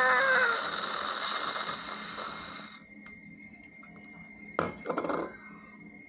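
A scream trails off in the first half second over a hissing rustle that stops about three seconds in. Near the end there is a single knock and a brief rustle of handling.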